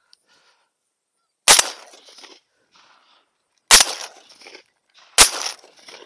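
Three shotgun shots fired at birds, about two seconds and then a second and a half apart, each a sharp blast with a brief echoing tail.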